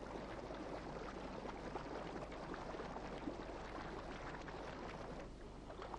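Faint, even background hiss with a steady low hum underneath.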